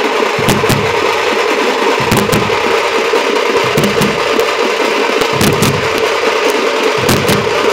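Loud group drumming on frame drums struck with sticks, together with a large bass drum: a dense, clattering din with irregular deep booms.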